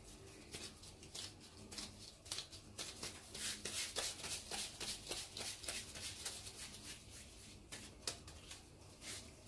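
Disposable-gloved hands rolling a small ball of dough between the palms: faint, irregular soft rubbing and rustling.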